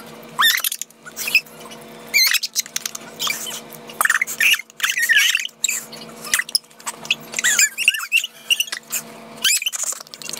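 Two young women squealing and giggling in high, squeaky voices: many short cries one after another, without words.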